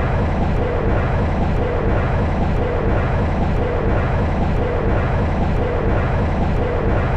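Passenger train running steadily, heard from the driver's cab: a constant rumble with a faint regular beat about once a second.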